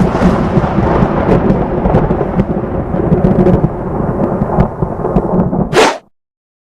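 Loud thunder-like rumbling with scattered crackles, ending in a sharp burst and cutting off abruptly about six seconds in.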